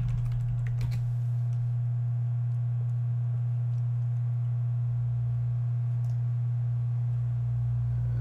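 A steady low hum, with a few computer-keyboard clicks in the first second.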